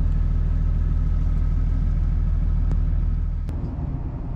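Trawler yacht's diesel engine running with a steady low drone. About three and a half seconds in, the drone drops away abruptly at a click, leaving a quieter low hum.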